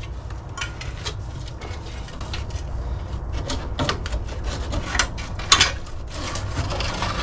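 Hand tools clicking and knocking irregularly against engine parts, with a sharper click about five and a half seconds in, over a steady low hum.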